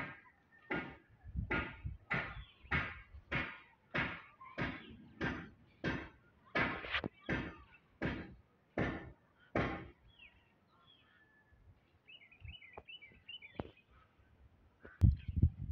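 Footsteps on a gritty concrete roof slab, about two a second, stopping about ten seconds in. Faint bird chirps follow.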